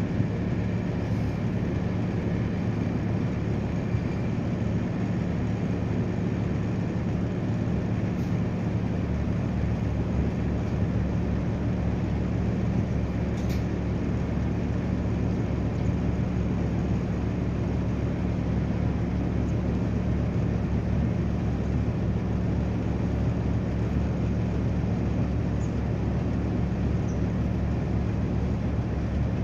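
A river passenger boat's engine running steadily, a constant low hum under an even rush of water and air.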